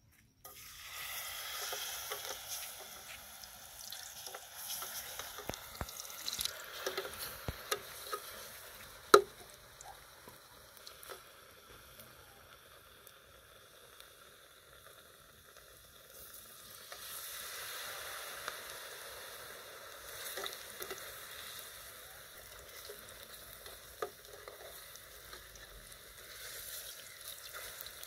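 Rice balls sizzling as they deep-fry in hot oil in an aluminium saucepan, the sizzle starting as a ball is lowered in and swelling again about two-thirds of the way through as a second ball goes in. Occasional sharp clinks of the metal spatula against the pot, one louder about nine seconds in.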